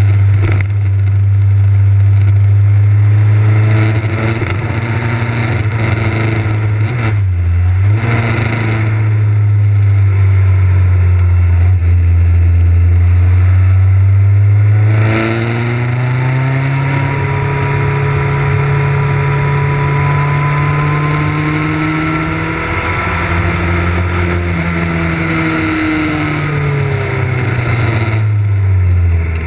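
Motorcycle engine running at road speed, heard from on the bike with wind rush over the microphone. The engine note drops briefly about seven seconds in, steps up to a higher pitch around fifteen seconds and holds there, then falls near the end.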